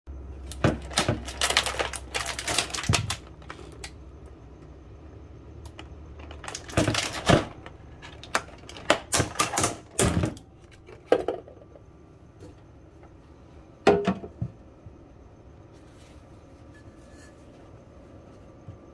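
Clear plastic clamshell egg carton being picked up and handled: clusters of sharp clicks and crackles of the plastic, in bursts during the first three seconds, around seven to ten seconds in, and once more near fourteen seconds.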